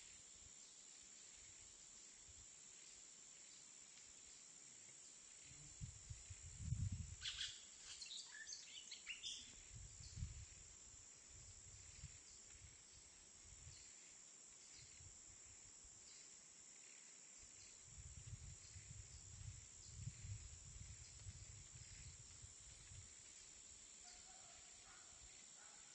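Faint jungle afternoon ambience: a steady high insect drone throughout, with a short cluster of bird chirps about a third of the way in. Low rumbles come and go, the loudest about a quarter of the way in and a longer stretch in the second half.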